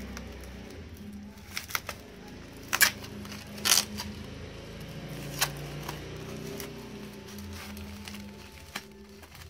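Plastic shipping wrap and tape crinkling as a parcel is unwrapped by hand, with a few sharp crackles, the loudest about three and four seconds in. Quiet background music plays underneath.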